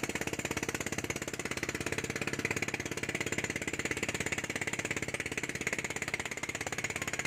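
Boat engine running steadily, a rapid, even chugging of many pulses a second.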